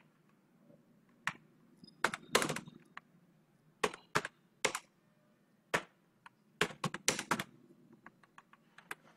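Typing on a computer keyboard: irregular sharp keystrokes, some in quick runs, with pauses between.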